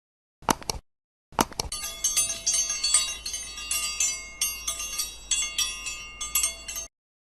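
Bright bell-like chiming: a brief ring, then a run of repeated ringing strikes for about five and a half seconds that cuts off abruptly.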